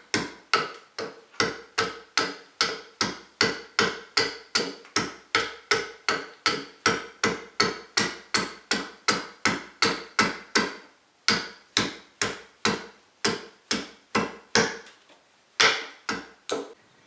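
Round-headed wooden carver's mallet striking a gouge, chipping out the hollow of a green bigleaf maple bowl blank: even knocks at about three a second, with a couple of brief pauses and the loudest blows near the end.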